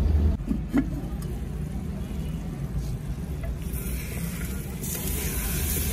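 A low steady rumble, then from about four seconds in chicken frying in an open clay pot starts to sizzle as it is stirred, the sizzle growing louder toward the end.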